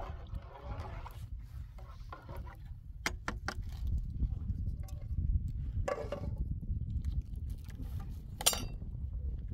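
A few sharp clinks and knocks, as of hard objects being handled, over a steady low rumble, with brief scraping bursts later on.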